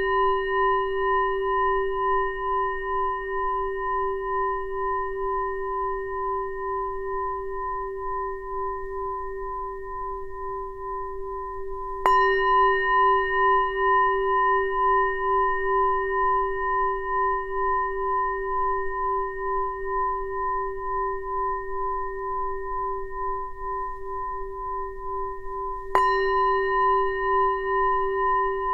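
Tibetan singing bowl struck twice, about fourteen seconds apart, each strike ringing on as a long, wavering hum with a low tone and several higher overtones that slowly fade. The bowl is already ringing from an earlier strike at the start.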